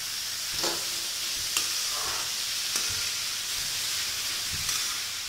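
Sliced ridge gourd (sarputiya) sizzling in hot mustard oil in an aluminium kadhai on high flame. It is stirred with a metal ladle that scrapes and clicks against the pan a few times, a steady hiss throughout.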